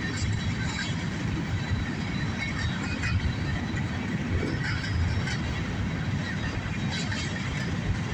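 Freight cars of a CSX mixed freight train rolling past: a steady rumble of steel wheels on the rails, with scattered short clicks and squeaks.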